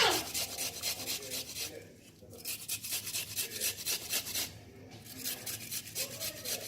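An onion being grated by hand on a grater: quick, rhythmic rasping strokes of the onion against the metal teeth, with two short breaks.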